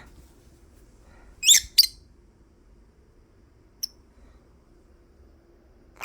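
Lovebird giving two sharp, quick rising squawks in a row about a second and a half in, then one short faint peep near four seconds: the odd calls it makes when nest-seeking.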